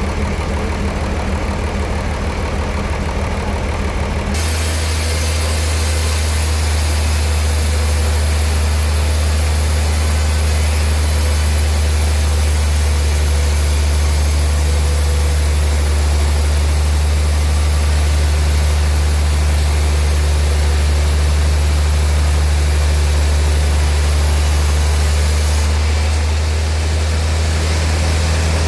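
Sawmill machinery running steadily with a loud, low engine drone. A steady high hiss joins about four seconds in and falls away near the end.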